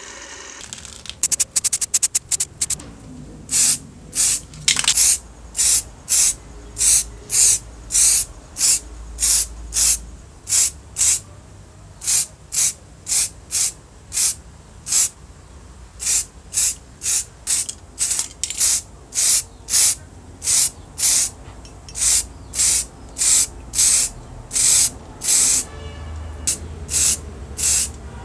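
Black spray paint being sprayed onto small metal parts in dozens of short hissing bursts, a little under a second apart, with a rapid flurry of very short bursts near the start.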